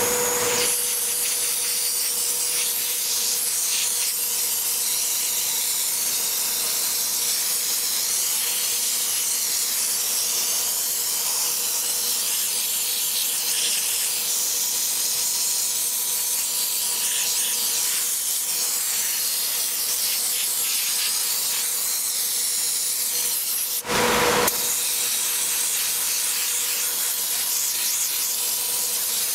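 A pressurised jet of cleaning spray hissing steadily against machinery, over a thin steady hum. About three-quarters of the way through, the hiss breaks off briefly and comes back in a short louder burst.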